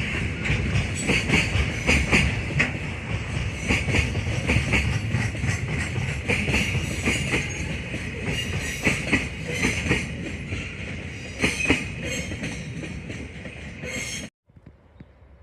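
Freight train wagons running past, their wheels knocking over the rail joints with a high wheel squeal above. It cuts off suddenly near the end, leaving faint background noise.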